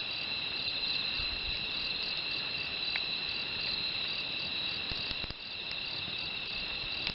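Crickets chirring continuously at two steady high pitches, with a quickly pulsing chirp layered over them. A few faint crackles of the wood fire come through underneath.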